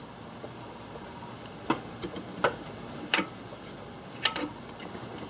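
A steel pry bar clinking against the engine and transaxle castings: four sharp metallic taps, starting a little under two seconds in and spaced roughly a second apart.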